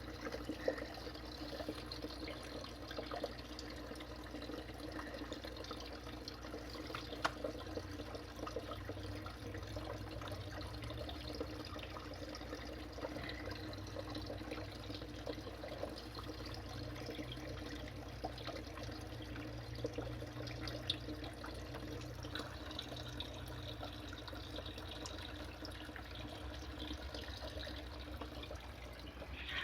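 Water trickling and dripping steadily over a low steady hum, with scattered faint clicks and taps.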